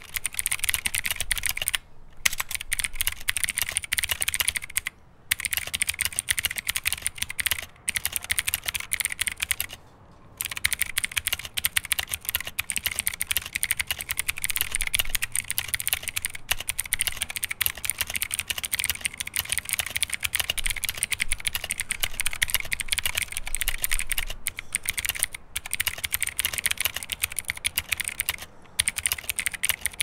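Steady fast typing on a Drevo Calibur 71 mechanical keyboard with Outemu Blue switches: a dense run of loud, clicky keystrokes, broken by a few brief pauses.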